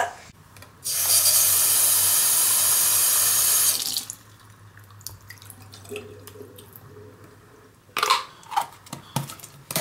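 Bathroom sink faucet turned on, running water into a plastic cup for about three seconds before being shut off abruptly. A few short knocks follow near the end.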